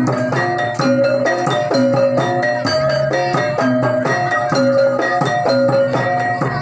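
Javanese gamelan music: struck metal-keyed instruments play a repeating, rhythmic melody with percussion underneath.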